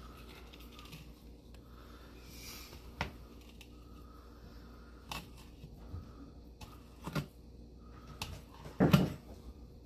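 Knife slicing along a bonnethead shark fillet on a plastic cutting board, with a few scattered sharp clicks and knocks; the loudest comes about nine seconds in.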